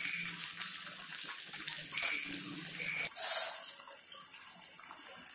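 Battered paneer pakoras deep-frying in hot oil in a kadai: a steady sizzle with scattered crackles.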